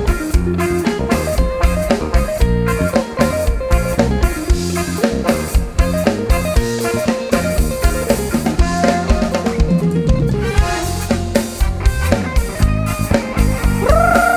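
Live band instrumental break in an Isan lam song: a drum kit with snare and bass drum keeping a fast steady beat under guitar.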